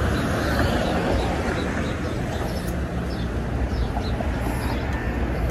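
City bus engine running with a steady low rumble as the bus pulls in to the stop and opens its front door. Over it come short high chirps, about three a second, that die away about four seconds in.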